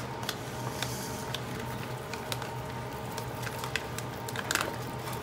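Plastic packaging crinkling with scattered light ticks as chunks of creamed coconut block are squeezed out of their sleeve into a dry pan, over a steady low hum.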